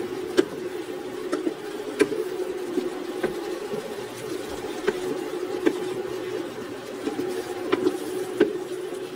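Wooden spatula stirring chunky vegetables in a stone-coated frying pan, knocking against the pan about seven times at irregular intervals, over a steady low hum.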